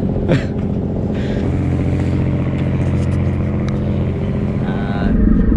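Steady low drone of a RoRo ferry's diesel engines. A short sound falling in pitch comes about a third of a second in, and the low rumble grows louder near the end.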